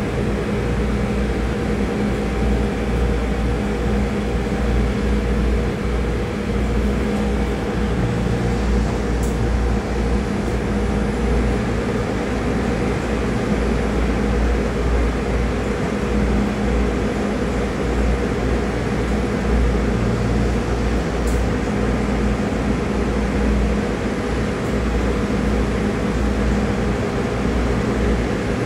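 Steady mechanical drone of a ship's engines and ventilation, with a few held hum tones over a low rumble, heard from on deck. Wind buffets the microphone unevenly in the low end.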